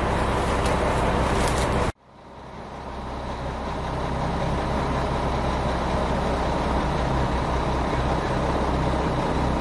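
Steady engine and road noise of a moving vehicle, a low hum under a broad rush. It cuts off abruptly about two seconds in and fades back up over the next couple of seconds to the same steady running.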